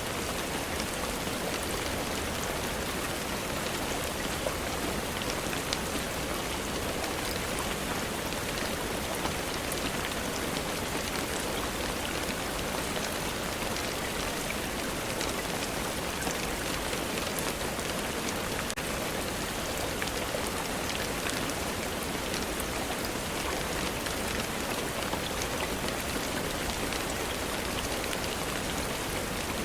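Steady rainfall, an even hiss dotted with fine, scattered drop ticks.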